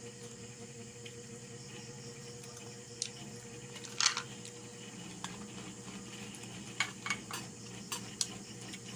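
Eating at a table: scattered short clicks and clinks of dishes and utensils, the loudest about four seconds in and a cluster of them near the end, over a steady low hum.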